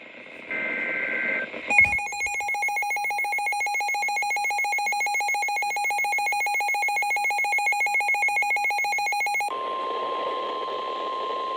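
Emergency Alert System tones from a weather alert radio. First comes the end of a SAME header data burst, a brief two-pitch warble. Then the receiver's electronic alarm beeps in a rapid, buzzy pulse for about eight seconds, and after a sudden cut the NOAA Weather Radio warning alarm tone sounds as one steady high tone over static hiss.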